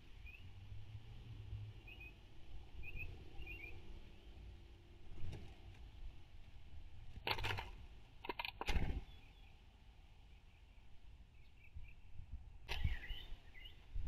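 Faint short chirps of distant small birds, and about seven and eight and a half seconds in, two short noisy bursts of wing flaps and knocks as a blue jay flies in and lands on a plastic tray feeder.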